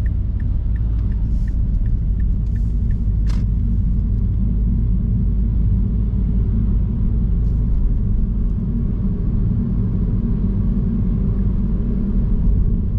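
Steady low road rumble and tyre noise inside a Mazda Axela Sport's cabin, driving on a wet road. For the first three seconds the turn-signal indicator ticks about twice a second, ending with a single sharp click a little after three seconds in.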